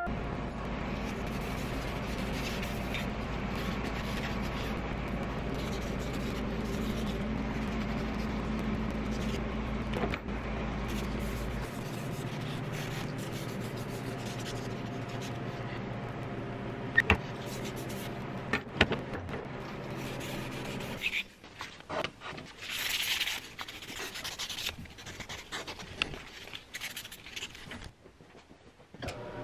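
Belt grinder motor running steadily, its lowest hum dropping out about twelve seconds in. Later, sandpaper rubbing in uneven strokes on a wooden knife handle, with a few light knocks.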